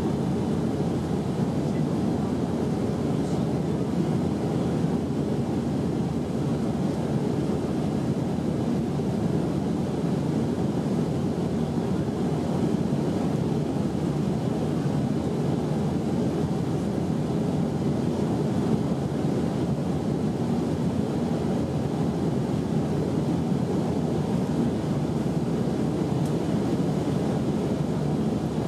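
Steady cabin noise of an Airbus A319 in flight: an even low rumble of the engines and airflow heard inside the passenger cabin, unchanging throughout.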